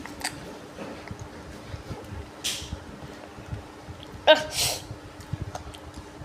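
A person with a cold gives one sudden, explosive burst of breath with a short voiced onset about four seconds in, a cough or sneeze from the cold, after a shorter noisy breath about two and a half seconds in. A faint steady hum runs underneath.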